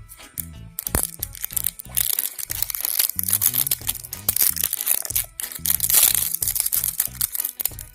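Plastic wrapping of an L.O.L. Surprise ball crinkling, crackling and tearing as it is unwrapped by hand, over background music.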